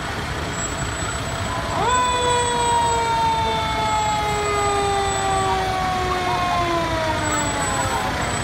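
Fire tanker's siren: a tone that jumps up in pitch about two seconds in, then slowly falls for several seconds as it winds down, over the low rumble of the passing truck's engine.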